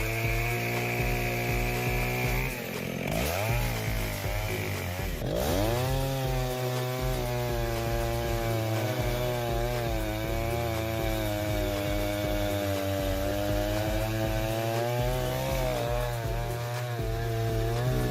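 Chainsaw engine running at high revs while cutting wood. The pitch drops and recovers twice in the first few seconds, then holds with a slight waver.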